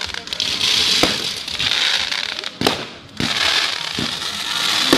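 Fireworks going off: a continuous hiss and crackle of burning stars, with several sharp bangs, the loudest a little before three seconds in.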